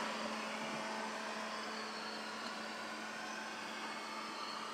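LeFant M500 robot vacuum running as it drives across a tile floor: a steady hum from its suction motor and brushes.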